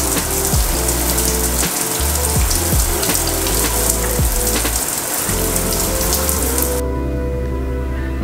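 Shower spray hissing steadily over soft background music. The spray cuts off suddenly near the end, leaving only the music.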